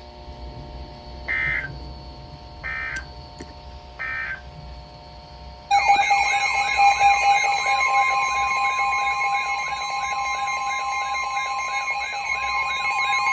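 Emergency Alert System tones: three short bursts of buzzy digital data tone, then about six seconds in a loud alert tone starts. The alert is a steady tone pair with a repeating warbling sweep laid over it.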